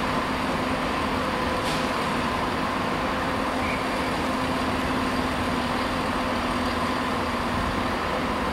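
Freight train of open box wagons rolling past: a steady rumble of wheels on rail with a steady hum running under it.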